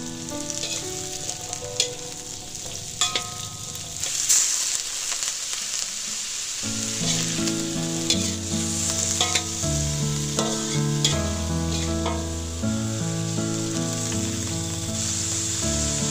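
Sliced luffa sizzling as it is stir-fried in a metal wok, with a metal spatula scraping and clicking against the pan now and then. Instrumental music plays underneath, fuller with bass notes from about seven seconds in.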